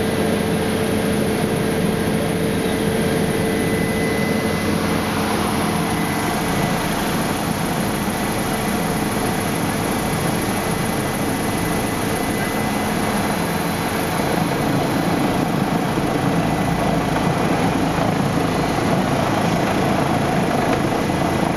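Helicopter engine and rotor running steadily, heard from inside the cabin while it sits on the ground, with a steady whine that fades out about halfway through.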